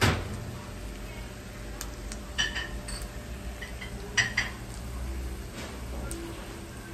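Metal clinks against a thin black steel frying pan on a gas stove: a sharp knock at the start, then two short clusters of ringing clinks about two and a half and four seconds in, over a steady low hum.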